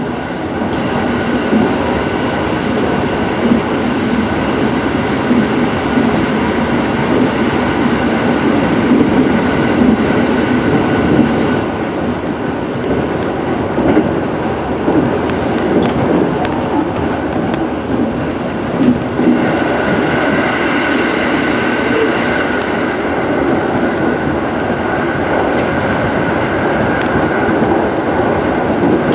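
JR Central 373 series electric train running at speed, heard from inside the car: a steady rumble of wheels on rail with a high whine that grows stronger about twenty seconds in, and a few sharp clicks.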